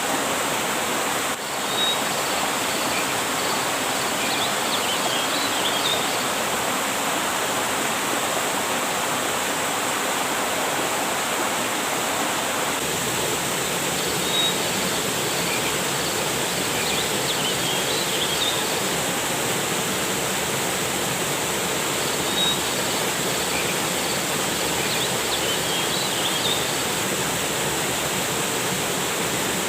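River water rushing steadily, a constant hiss of flowing water. Groups of faint, short high chirps recur a few times over it.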